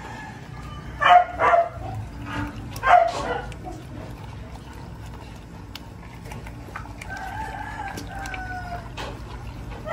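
A rooster crowing: a few short, loud calls between about one and three seconds in, then one long call that falls slightly in pitch toward the end.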